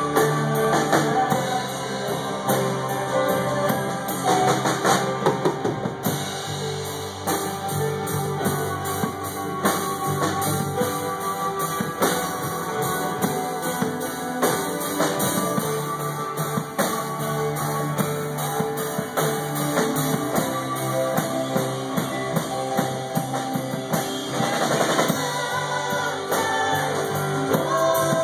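Live band playing a song on drum kit, acoustic guitar, keyboard and violin.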